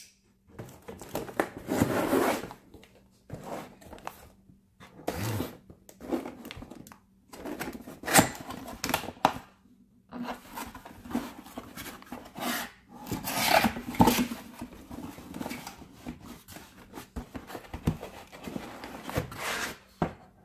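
Laptop box packaging being opened and handled: rubbing, scraping, tearing and crinkling in irregular bursts with brief pauses, and a sharp knock about eight seconds in.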